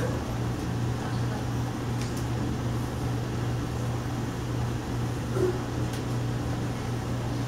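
Steady low hum with an even background of room noise, with no clear event standing out.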